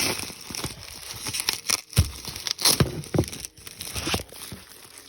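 Packing material being crinkled and pulled off a Lego model by hand, in irregular rustles and sharp crackles, louder in the middle and quieter near the end.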